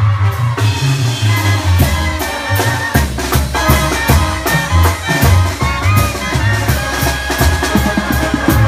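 Mexican banda brass band playing: a low bass line of held, changing notes under a steady drum beat, with wind melody lines above.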